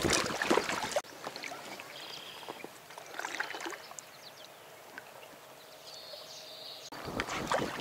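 Kayak paddle dipping and splashing beside an inflatable Alpacka packraft, loudest in the first second and again near the end. In between is a quieter stretch of small water sounds and a few faint high bird calls.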